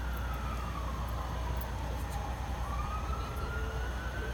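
Emergency vehicle siren wailing: its pitch falls slowly through the first half and climbs back up near the end, over a low steady rumble.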